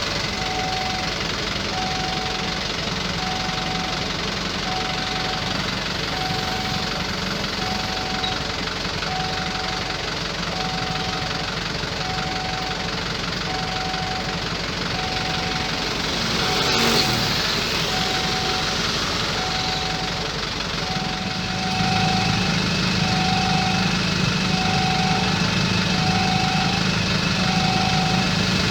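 Railway level-crossing warning siren, a newly replaced smaller unit, sounding one steady electronic tone in short beeps about every second and a half. Engines run underneath; a vehicle passes with a falling pitch a little past halfway, and a louder engine sets in about three-quarters of the way through.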